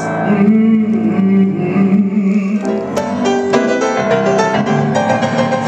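Jazz piano played live. Low notes ring for the first half, then a quick run of struck notes and chords starts about halfway through.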